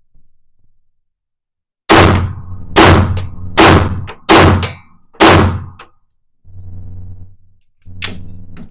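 Five handgun shots fired at about one a second, each a sharp crack ringing off the walls of an indoor range lane. Then the range's electric target carrier hums for about a second, and a single sharp clack comes near the end.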